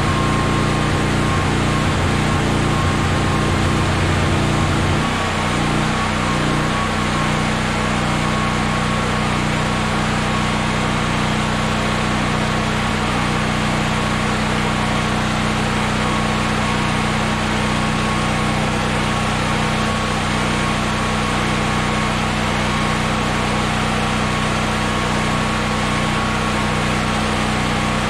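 Honda EB6500X generator's single-cylinder GX390 engine running steadily with no load, at full speed with the auto throttle off, shortly after a choked cold start. About five seconds in the low engine note changes and the level drops slightly. A thin steady whine sits above the engine note.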